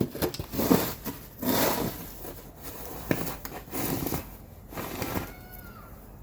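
Snow shovel scraping and pushing heavy snow on a driveway, in a series of separate strokes about a second apart that fade toward the end. A few short chirps, like a small bird, come in near the end.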